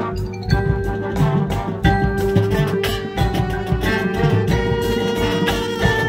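Drum and bugle corps playing live in the open: the brass horn line holds chords over drums and keyboard-style mallet percussion.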